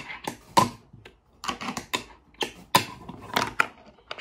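Fingerboard being flicked and landed on a wooden Blackriver Box 3 ramp: a rapid, irregular run of sharp wooden clacks and taps from the deck popping and the wheels landing on the wood.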